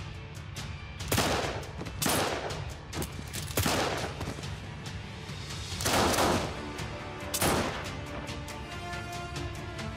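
A gunfight: five loud handgun shots about a second or two apart, each with a long echoing tail, over dramatic background music.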